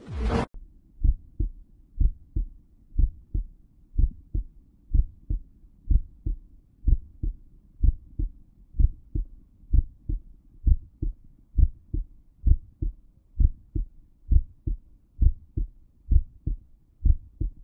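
Recorded human heartbeat: paired low lub-dub thumps, the first and second heart sounds, repeating steadily about once a second. A faint low hiss runs between the beats.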